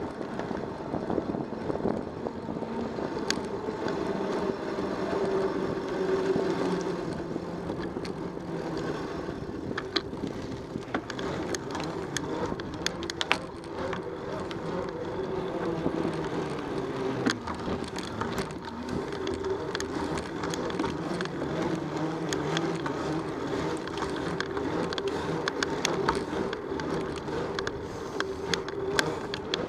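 Bicycle riding on pavement, heard from a camera mounted on the bike: steady tyre and wind noise with a hum that wavers in pitch, and scattered clicks and rattles from bumps in the road.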